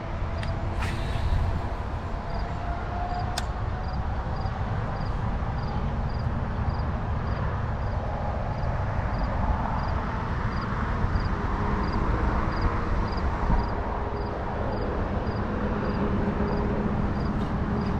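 Steady traffic noise from a nearby interstate: a constant rumble and tyre hiss from passing vehicles, with slow rising and falling hums as they go by. A faint, regular high tick runs through it.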